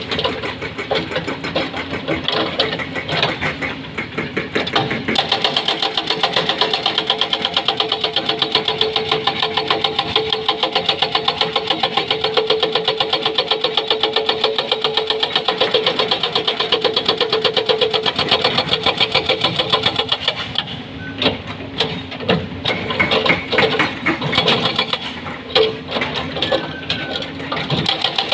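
Doosan excavator engine running under load while its hydraulic breaker hammers rock in a fast, steady rhythm, giving way to separate knocks about twenty seconds in.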